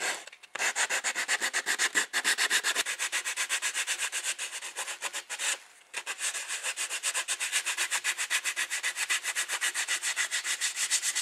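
Cedar board being hand-sanded with 100-grit sandpaper: quick back-and-forth rubbing strokes, about five a second, with a short pause about halfway through.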